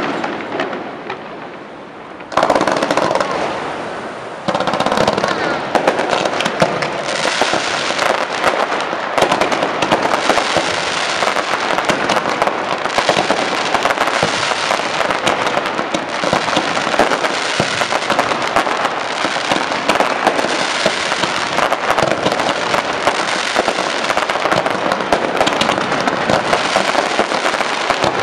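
Aerial fireworks going off: sharp bursts about two and four seconds in, then a dense, unbroken barrage of bangs and crackle.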